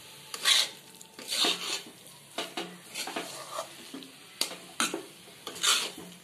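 Spatula scraping round a metal kadai as boiled jackfruit pieces and masala are gently turned over, in short strokes about once a second, with the masala sizzling underneath.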